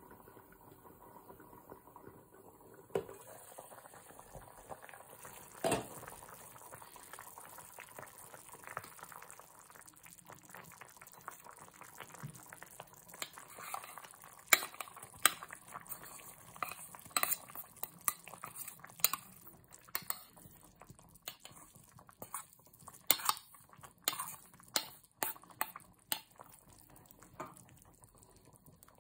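Soup simmering in a stainless steel pot, with a clank about 3 s in and another knock near 6 s as the lid comes off. From about 14 s a spatula scrapes chopped herbs out of a small metal bowl and stirs the pot, with many sharp clicks and taps against the metal.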